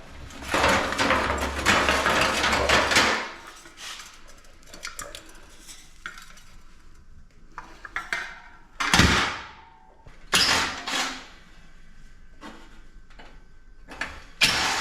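Loose metal parts clattering and scraping against each other for about three seconds, then a few separate clanks and knocks, as a scrapped PTAC air-conditioner unit is taken apart by hand.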